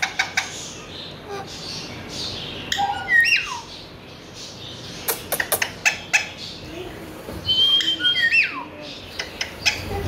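Alexandrine parakeet calls: two loud squawks that swoop up and back down, about three seconds in and again near eight seconds, the second preceded by a short held whistle. Sharp clicks and taps come between the calls.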